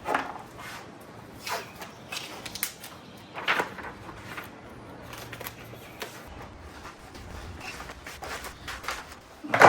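Scattered small clicks, taps and scrapes of hand work on a wooden door panel, over a faint steady low hum, with a louder knock at the very end.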